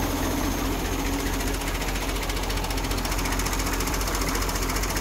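IMT 539 tractor's three-cylinder diesel engine idling steadily with a fast, even knocking beat.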